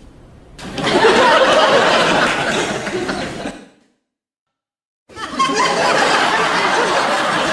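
Sitcom laugh track: a studio audience laughing for about three seconds, a second of dead silence, then a second clip of audience laughter.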